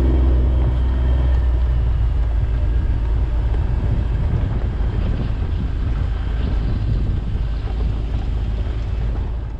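Kawasaki Mule Pro-FXR side-by-side's three-cylinder engine running steadily as the vehicle drives along a rocky dirt trail, with wind rumbling on the microphone.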